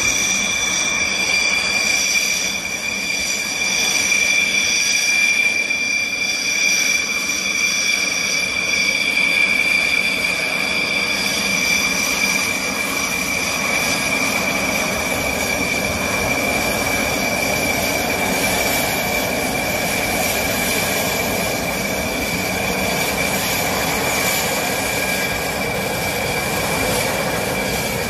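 Dassault Rafale's twin M88 turbofan engines at taxi power: a steady high-pitched whine, with a rushing roar that grows louder about halfway through as the jet rolls past.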